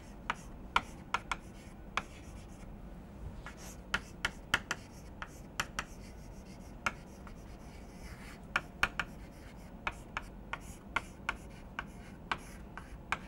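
Chalk writing on a chalkboard: irregular short taps and scratches as each letter is stroked out.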